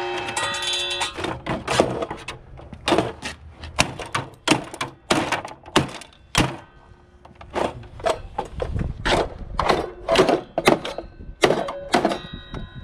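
Repeated hatchet blows chopping into a table saw's motor and wiring inside its plastic housing to cut the wires and knock the motor loose: a long run of sharp, irregular thunks, about two to three a second, with a short break just past the middle.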